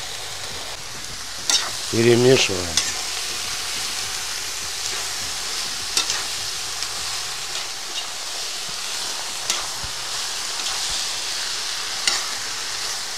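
Shredded cabbage with onion, carrot and tomato paste sizzling in hot oil in a kazan as it is stirred with a metal slotted spoon, which clinks against the pot now and then.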